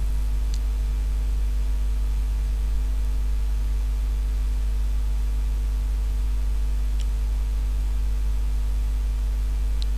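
Steady low electrical hum with faint higher steady tones above it, and a few faint ticks.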